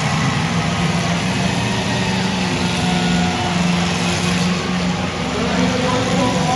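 Several demolition derby cars' engines running and revving together, a steady loud engine drone.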